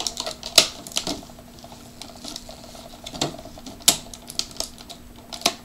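Scattered sharp clicks and rattles of a stiff clear plastic package and the toy inside being handled while scissors work at a zip tie holding the toy in, over a low steady hum.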